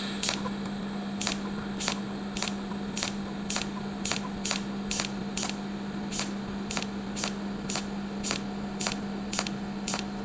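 Cold welding machine depositing a repair bead into a groove on a worn shaft: sharp ticking discharges about twice a second over a steady electrical hum and a high-pitched whine.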